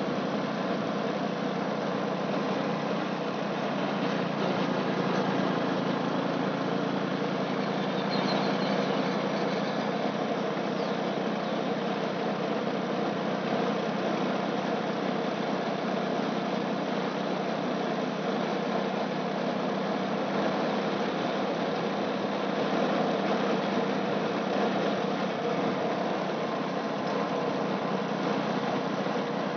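A vehicle's engine running steadily while driving, under a constant rush of road and wind noise.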